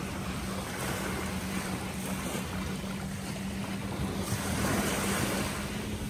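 Surf washing on a beach, with wind buffeting the microphone and a steady low hum underneath; the wash swells a little about four seconds in.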